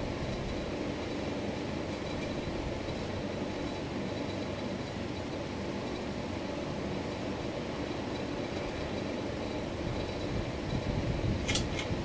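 Hugger four-blade ceiling fan coasting down after being switched off, a steady whooshing hum as the blades slow toward a stop. A few sharp clicks come near the end.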